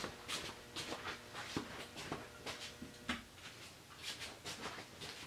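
Faint, irregular rustling and shuffling noises, a few soft scrapes a second.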